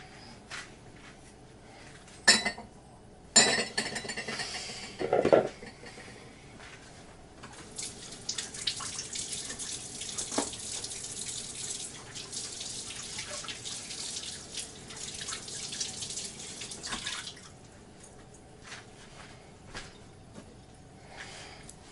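Kitchen sink tap running for about ten seconds, then shut off, after a few sharp knocks.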